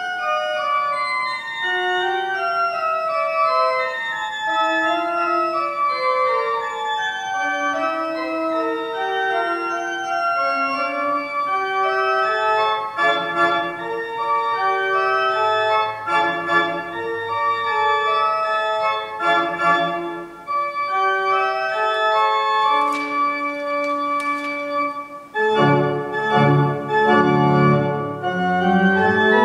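Church pipe organ playing a slow piece of held chords and a flowing line of notes. Near the end it grows fuller, with deep pedal notes coming in.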